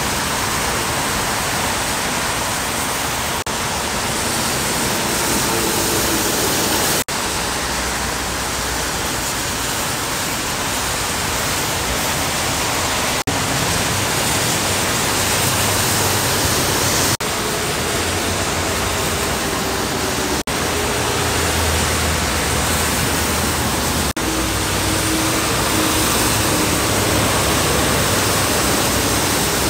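Steady, dense hiss of heavy rain and tyre spray from freeway traffic on wet pavement, with the low drone of passing semi trucks underneath. The sound breaks off for an instant several times.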